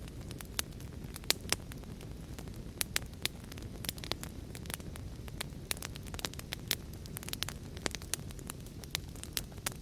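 Wood fire in a fireplace crackling: irregular sharp pops and snaps, several a second and a few louder than the rest, over a steady low rush of burning.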